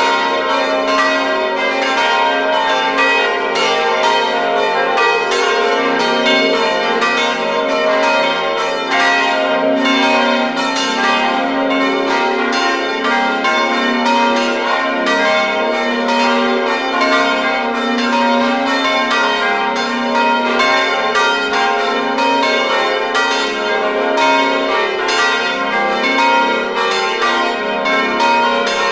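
Festive peal (distesa) of the five largest bronze bells of a nine-bell De Poli peal in F, swung by electric motors in the Italian full-swing (a slancio) style. The strokes overlap continuously.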